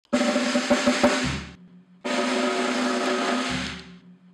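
Drum kit played with sticks: two fast snare-drum rolls, each about a second and a half long, separated by a short pause. Kick-drum thuds sit under the first, and each ends with a low drum ringing out briefly.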